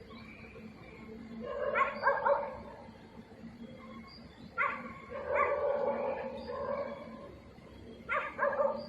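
A Chinese rural farm dog barking on guard in three bouts: about a second and a half in, a longer run from about four and a half to seven seconds, and again near the end.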